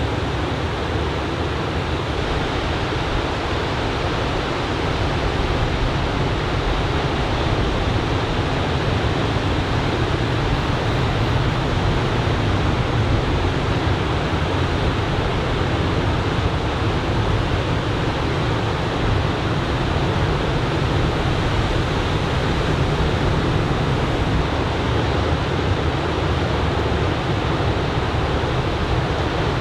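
Ocean surf from a typhoon swell breaking along the beach: a steady wash of noise with a deep low rumble under it, no single wave crash standing out.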